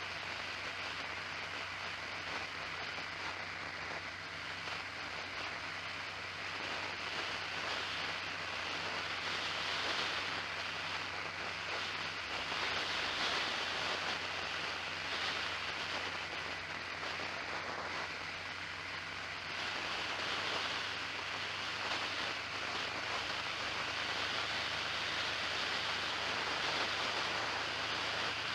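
Steady wind and road noise from a moving vehicle, picked up by an onboard microphone, with a low steady hum underneath; the loudness swells and eases a little.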